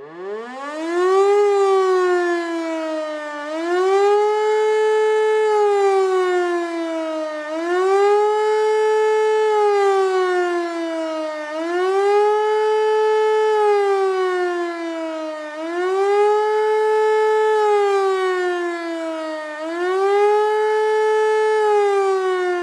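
German civil-defence warning siren sounding the rising-and-falling warning tone of an annual siren test. It winds up from silence at the start, then wails in a regular cycle about every four seconds: a quick rise, a short hold at the top, and a slower fall in pitch.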